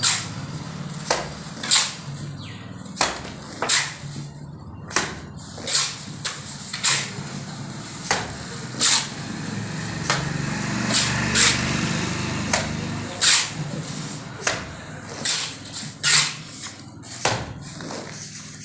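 Cement-sand mortar of medium consistency thrown from a mason's trowel onto a brick column, wet slaps about once a second, with the trowel scraping mortar across the bricks in between. A steady low hum runs underneath.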